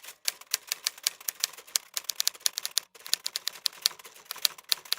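Typewriter keys clicking rapidly and irregularly, about eight strikes a second, with a short break near the middle.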